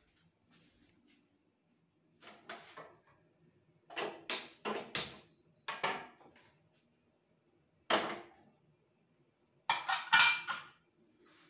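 Metal pressure cooker clanking as it is picked up, carried and set down on the pan support of a gas stove: groups of sharp metal knocks, the loudest near the end as it lands on the burner.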